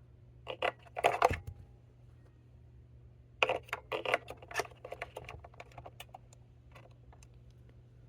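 AA batteries being handled and pressed into a plastic toy's battery compartment: a burst of clicks and clatter about a second in, a longer run of clicks from about three and a half seconds in, then a few small ticks.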